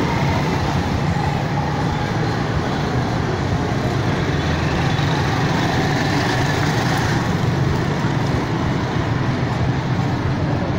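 Steady, continuous rumble of a running motor vehicle, with no marked changes.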